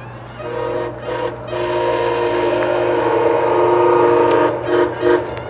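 MARC commuter train's air horn sounding a chord of several notes: a short blast, a brief second one, a long held blast, then two quick short blasts near the end.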